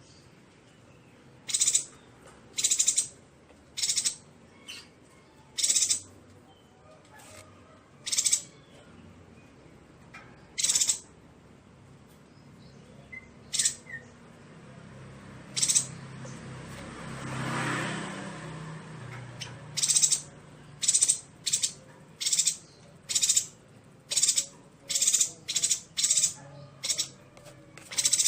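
Yuhina calling: short, sharp, high-pitched calls repeated at irregular intervals, pausing for a few seconds midway, then coming faster near the end. Midway, a soft rushing noise swells and fades behind the calls.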